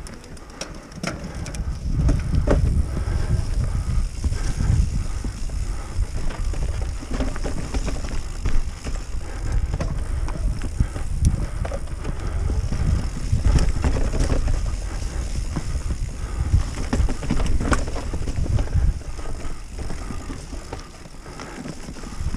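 Mountain bike being ridden over rough ground: tyre noise, with frequent rattles and knocks from the bike, and wind rumbling on the microphone.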